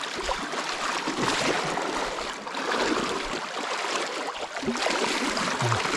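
A shallow rocky hill stream rushing, with uneven surges of splashing as it is waded across on foot.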